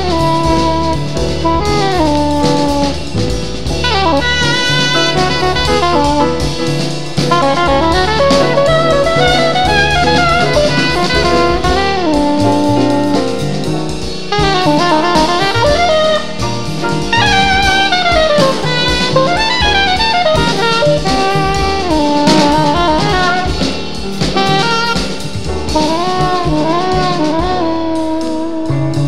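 Small-group jazz recording: a saxophone plays a flowing melodic line with vibrato over a stepping bass line and drum kit.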